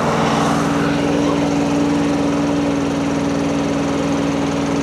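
Rippa RS06 mini skid steer's engine running steadily while it lifts a pallet of about 560 pounds of concrete blocks, at the limit where the machine starts to tip.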